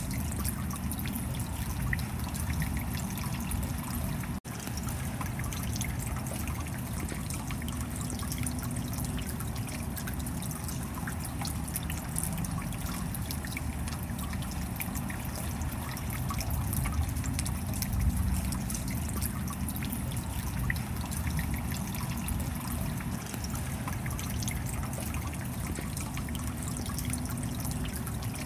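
Shallow stream rushing and splashing over rocks in a small cascade: a steady churning of water. The sound cuts out for an instant about four seconds in.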